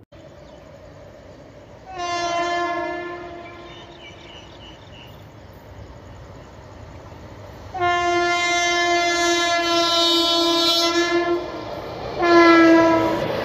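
Indian Railways electric locomotive's air horn sounding three times as it approaches: a blast of about two seconds, a longer blast of nearly four seconds, then a short blast near the end. The train's running noise rises as the last blast ends.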